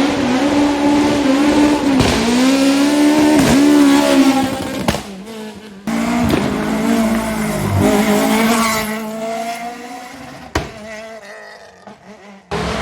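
Rally car engines at full throttle, the pitch dipping briefly twice at gear changes, with tyre squeal. The sound cuts off abruptly about six seconds in. A second car's engine then holds a steady note and fades away.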